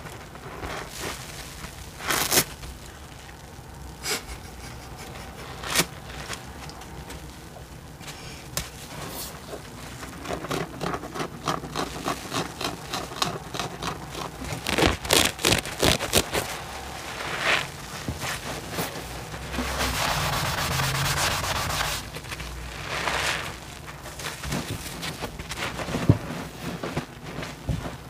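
Soapy sponges squeezed and rubbed by hand in a sink full of thick suds: wet squelching and foam crackling, with a few sharper squishes. In the middle the crackling comes thick and fast, and a little later there is a short steady hiss of foam.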